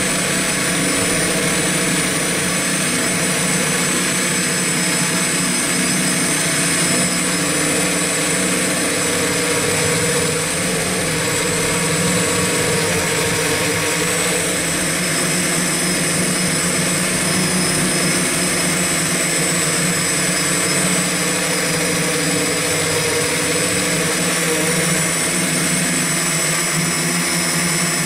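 Electric motors and propellers of an X8 coaxial multirotor copter in flight: a steady buzzing whine with several held tones, heard close up from the camera carried on the copter.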